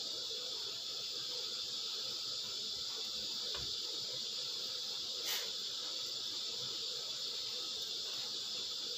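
Steady high-pitched insect chorus, crickets or similar, with no break. One sharp click stands out about five seconds in, as a piece of stuffed bitter melon is set into the steel pot.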